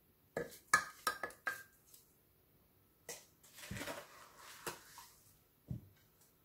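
A metal spoon clinking and knocking against a glass jar as sugared chopped fruit is spooned in. A quick run of ringing clinks comes about half a second in, then a soft rustle of fruit settling and a few more single knocks.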